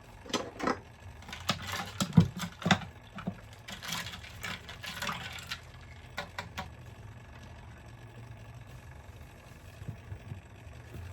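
Kitchen appliance motor running with a steady low hum, after a few seconds of knocks, clatter and a brief hiss from handling at the counter.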